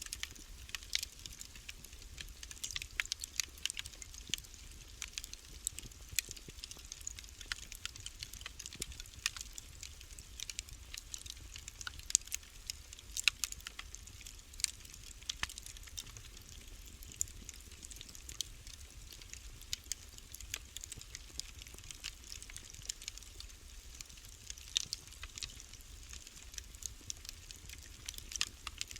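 Wood fire crackling in a fireplace: irregular sharp pops and snaps, a few a second, with a handful of louder ones about halfway through, over a faint steady low rumble.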